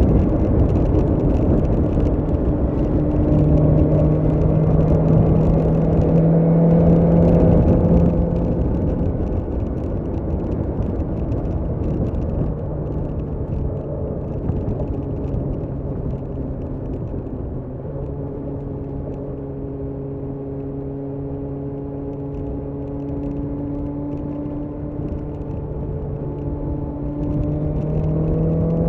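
BMW S1000R's inline-four engine running at a steady speed while riding, with wind rush. The engine note is strongest for the first eight seconds, eases off, and rises in pitch again at the very end as the bike accelerates.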